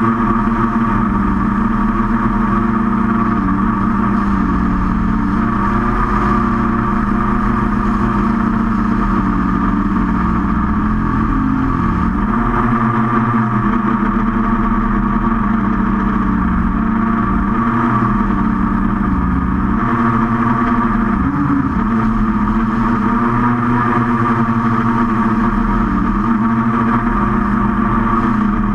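QAV500 quadcopter's electric motors and propellers running in flight, a steady drone whose pitch wavers up and down with throttle changes.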